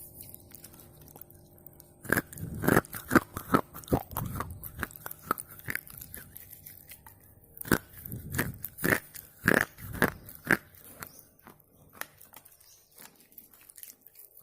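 Red slate pencil being bitten and chewed close to the microphone: sharp crunches start about two seconds in, with a second run of crunches about eight seconds in and softer chewing between and after.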